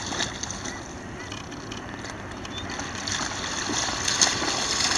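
A dog splashing as it wades and bounds out through shallow lake water, the splashing growing louder in the second half, with a sharp splash about four seconds in.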